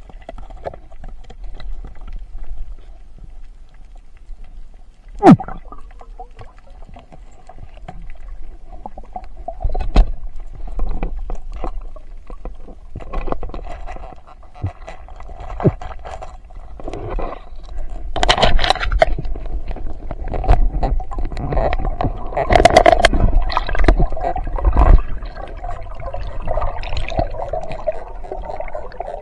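Underwater bubbling and gurgling with scattered clicks and knocks. There is a sharp knock about five seconds in, and longer rushes of bubbles at about eighteen seconds and again from about twenty-two to twenty-five seconds.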